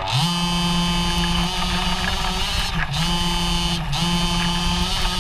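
The 26cc two-stroke petrol engine of a Losi 5ive-T RC truck, heard close up, revs up sharply at the start and is held at high revs. It drops briefly a few times as the throttle is eased.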